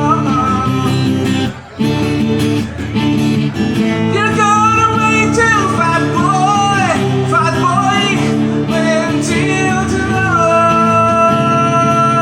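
A song with singing over guitar accompaniment, the voice ending on one long held note about ten seconds in.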